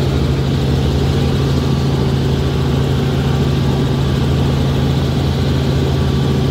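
Robinson R44 helicopter in cruise flight, heard inside the cabin: a loud, steady drone of engine and rotors with a strong low hum, holding constant.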